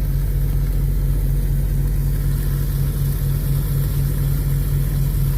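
Diesel engine of a semi truck idling, a steady low rumble with a fast even pulse, heard from inside the cab.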